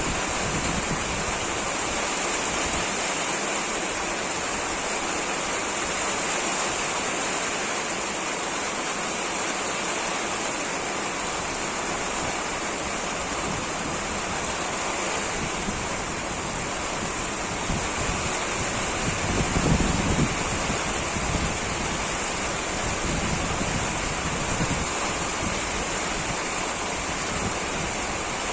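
Heavy rain falling in gusty wind, a steady dense hiss. About two-thirds of the way in, a few louder low rumbles as wind gusts buffet the microphone.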